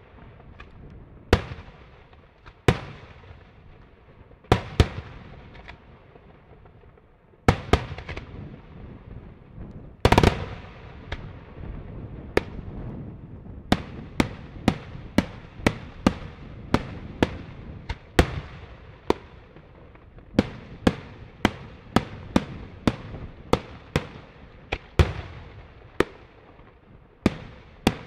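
Daytime fireworks: aerial shells bursting overhead with sharp bangs, each trailing off in an echo. A few bangs come seconds apart at first, the loudest about ten seconds in. Then they settle into a steady run of about two a second.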